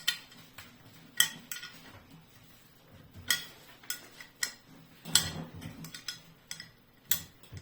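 Sharp metal clicks and clinks of a wrench working the bolts on a sewage pump's housing, irregularly spaced about a second apart.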